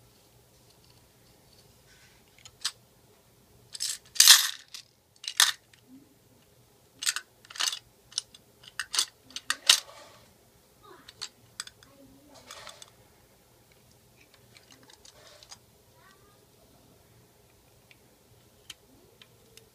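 Pennies clinking and rattling inside the hopper of an alloy toy garbage truck as it is handled and its front arms and bin are worked, with small clicks from the mechanism. A run of sharp clatters, loudest about four seconds in, dies down to faint ticks in the last few seconds.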